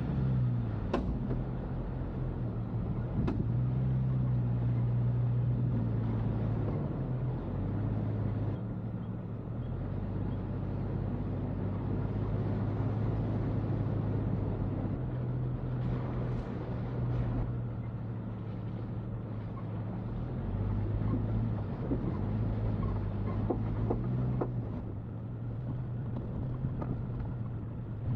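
Jeep Cherokee XJ driving, its engine note holding steady and then stepping up and down with the revs over steady road noise. A few sharp knocks come through, about a second in, at about three seconds, and past the middle.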